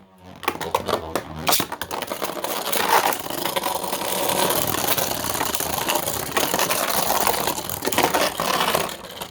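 3D-printed Beyblade spinning tops whirring around a plastic stadium and repeatedly clashing, a dense run of scraping and rapid clicking hits.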